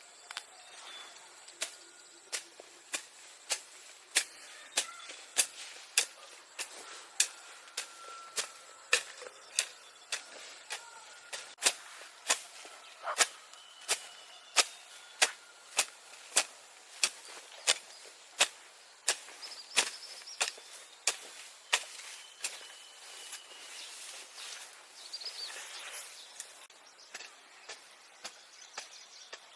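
A long series of sharp knocks at a steady pace of about two a second, stopping a few seconds before the end.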